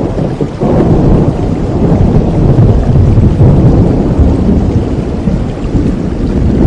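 Steady rain with a low rumble of thunder that swells suddenly about half a second in and keeps rolling.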